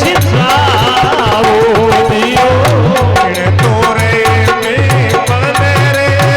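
Loud Rajasthani devotional bhajan music: a wavering, ornamented melodic lead over a steady drum beat of about two strokes a second.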